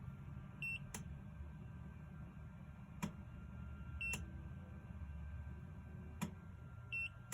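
Oukitel device beeping and clicking in a repeating pattern: three short high beeps about three seconds apart, with four sharp clicks in between. A low steady hum runs underneath.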